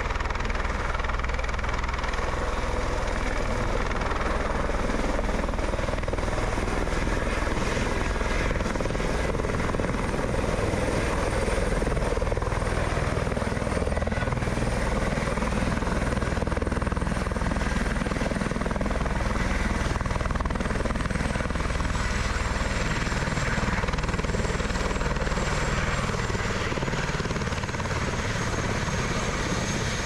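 Helicopter running close by, a steady rotor and engine noise with a high turbine whine that slides down in pitch over the last third.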